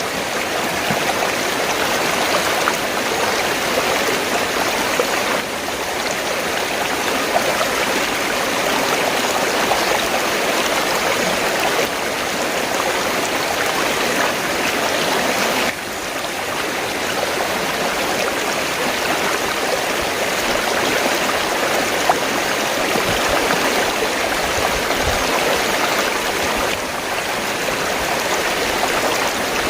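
River water rushing over rocks in a steady, unbroken wash, with a few slight sudden dips in level.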